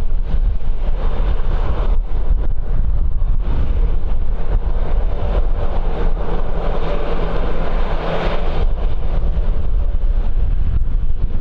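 Strong wind buffeting the microphone, over the rushing noise of aircraft engines that swells from about four seconds in and falls away sharply at about eight and a half seconds.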